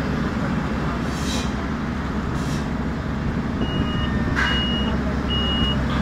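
Road-paving machinery running, with a tandem drum asphalt roller passing close and giving a steady low engine drone. From about halfway through, a high reversing alarm beeps at a steady pitch, each beep about half a second long and a little faster than once a second.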